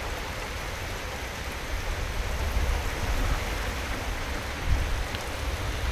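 Heavy rain falling steadily, with a low rumble underneath.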